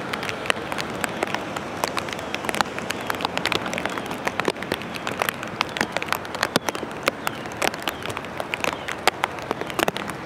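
Rain pattering steadily, with many irregular sharp drop hits.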